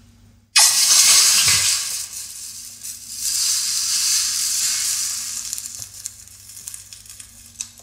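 Saucepan of hot caramel plunged into a bowl of cold water, hissing and sizzling: the hiss starts suddenly and loud about half a second in, swells again around three seconds in, then fades away. The cold-water bath stops the caramel cooking.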